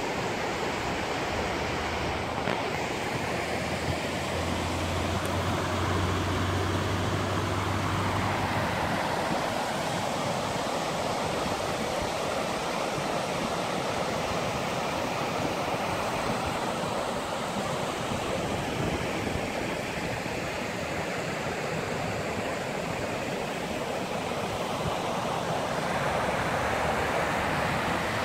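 Shallow river rapids: water rushing and splashing over rocks in a steady, unbroken noise.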